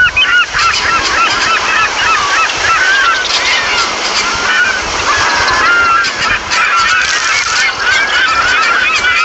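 A large flock of birds calling all at once: many short calls that bend up and down in pitch, overlapping without a break.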